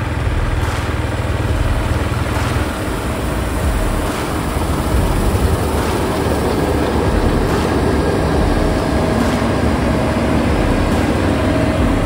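John Deere X9 1000 combine running under load while harvesting, a steady mix of engine hum and threshing and header machinery noise. The low hum changes in character about two and a half seconds in.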